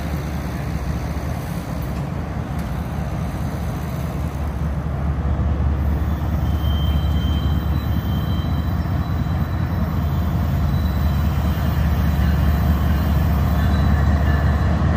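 Diesel locomotives leading a grain train approach with a low engine rumble that grows louder from about five seconds in.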